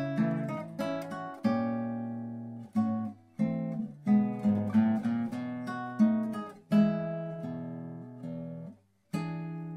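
Background music: acoustic guitar playing plucked and strummed chords, with a brief break near the end.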